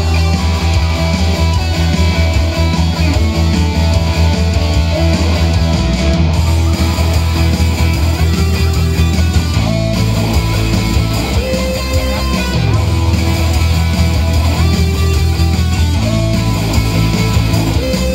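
Electric guitar played through an amplifier: a rock instrumental with busy, changing notes over a steady, heavy low bass.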